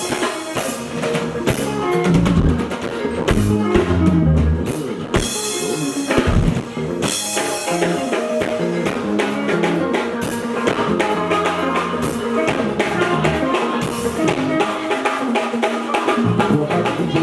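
Band music with a drum kit prominent: steady kick and snare hits under bass and other pitched instruments, without singing.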